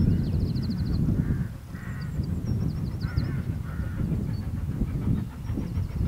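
Hunslet Austerity saddle tank steam locomotive approaching out of sight, heard as a low, uneven rumble, with birds calling and chirping over it. Near the end a faint, quick regular beat comes in as it draws closer.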